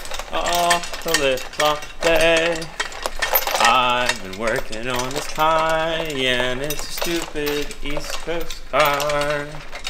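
A voice singing a melody, its notes held and bending from one to the next, with scattered light metallic clinks from an engine hoist's chain and tools.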